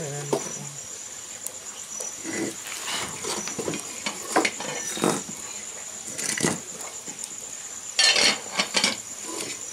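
Scattered knocks, scrapes and clicks as a bamboo tube is pushed and shifted into a wood fire on the hearth, with a louder burst of scraping about eight seconds in. A steady high-pitched tone runs underneath.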